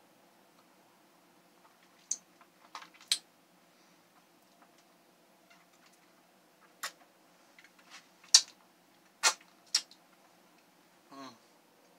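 Sharp wet lip smacks and clicks as lipstick is applied and the lips pressed together, about seven in all, the loudest about two-thirds of the way in, with a brief hummed voice sound near the end.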